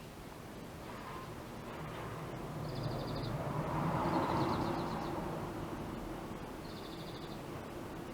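A passing vehicle, its sound swelling to a peak about four seconds in and then fading, with short high chirping trills every few seconds.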